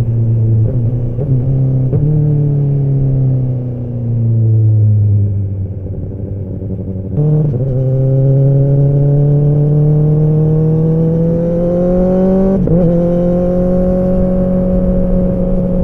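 Kawasaki ZX-10R's inline-four engine and exhaust on the move. The note falls away as the bike slows off the throttle, then a little under halfway the throttle opens and the note gets louder and climbs steadily under acceleration. A brief break comes near the end, after which the note holds steady.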